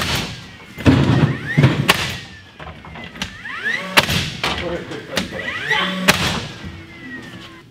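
Cordless drill driving screws to fasten a bracket to a wooden wall stud: the motor whirs up in pitch several times, with a few sharp knocks between runs.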